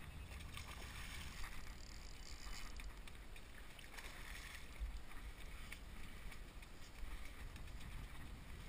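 Water splashing around a kayak as a hooked fish thrashes at the surface, most strongly about four seconds in, over a steady low rumble.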